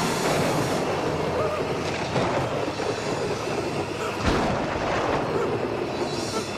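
Dense rumbling roar of horror-film sound design, with a heavy boom about four seconds in.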